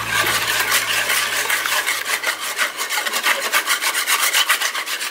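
Wire balloon whisk beating an egg, sugar, yeast and water mixture in a plastic bowl, in quick, even strokes of wires scraping the bowl and splashing the liquid, to dissolve the sugar.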